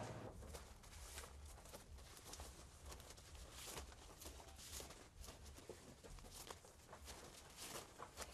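Faint, irregular rustling and crackling of green tobacco leaves being handled.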